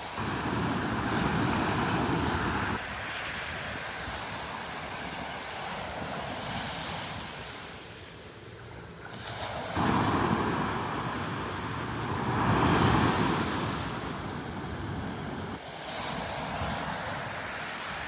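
Small Gulf of Mexico waves breaking and washing up the sand, the surf swelling and easing every few seconds with a lull about eight seconds in, with wind buffeting the microphone.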